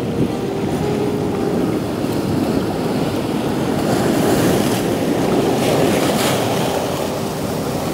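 Ocean surf: a wave breaks against the rocks and rushes up the sand. The noise swells to its loudest about halfway through, then eases slightly.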